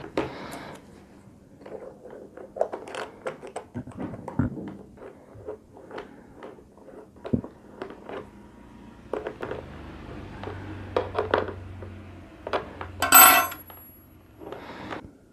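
A small steel spanner, a washer and a nut click and clink against a marble tabletop and the plastic shell of a welding helmet as its headgear is bolted back on. About thirteen seconds in there is a louder metallic clank with a short high ring, the spanner being set down on the stone.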